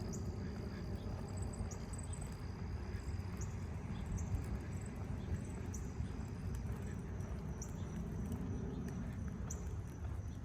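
Outdoor neighborhood ambience: a steady low rumble, with short high rising chirps about every two seconds and a thin, steady high whine that stops about two-thirds of the way through.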